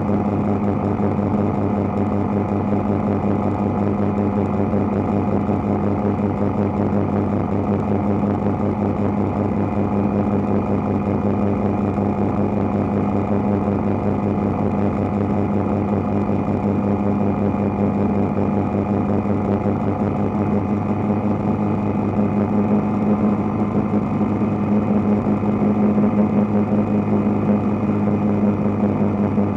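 Light helicopter on final approach: steady engine and rotor drone with a rapid, even pulsing beat, growing a little louder over the last several seconds.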